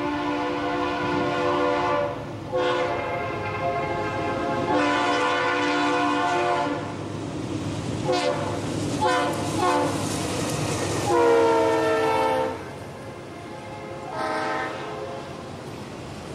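CSX C40-8W diesel locomotive's multi-chime air horn blowing a series of long and short blasts as the train approaches. The loudest blast, about eleven seconds in, drops in pitch as the locomotive goes by. The freight train's rolling rumble carries on under and between the blasts.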